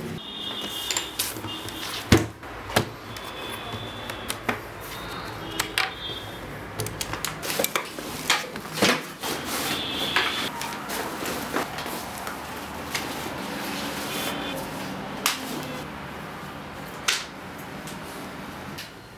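Handling and packing gear into a backpack: a series of irregular clicks and knocks over rustling of fabric and bag.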